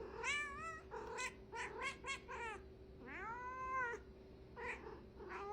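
A cat meowing repeatedly: a quick run of short meows, one longer drawn-out meow about three seconds in, then a couple more short meows near the end.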